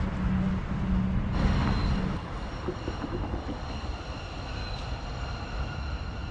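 A train or tram running at the station: a steady low hum stops about two seconds in, as a steady high whine of several tones starts and holds.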